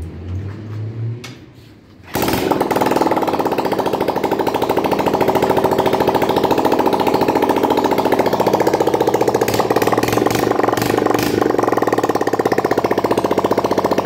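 Dirt bike's single-cylinder engine kick-started and catching about two seconds in, then running with its exhaust pipe removed: a loud, harsh, rapid beat straight from the open exhaust port.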